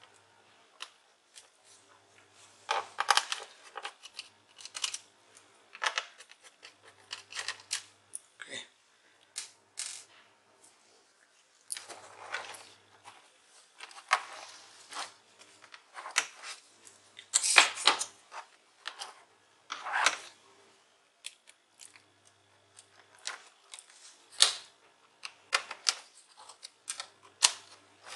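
Irregular plastic clicks, knocks and scrapes from a laptop's case and a screwdriver being handled while the laptop is taken apart and turned over. There are a few longer scraping rubs among the short clicks.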